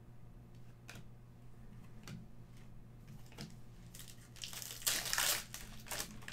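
A few faint clicks of trading cards being handled, then a foil trading-card pack being torn open and crinkled, starting about four seconds in and loudest about a second later.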